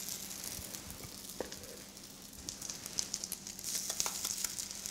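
Pancake batter sizzling in butter in a hot electric frying pan: a steady hiss with many small crackles, which get busier about three and a half seconds in.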